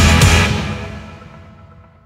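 Background music with drums ends on a final hit that rings out and fades away over about two seconds.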